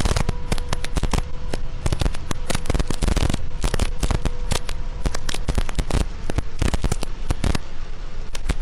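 Heavy rain hitting a vehicle's windscreen and roof, a dense, irregular crackle of impacts over a faint steady hum.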